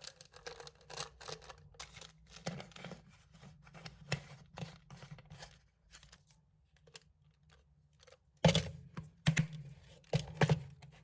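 A run of small, quick clicks and rustles, like something being handled or unwrapped, growing louder near the end.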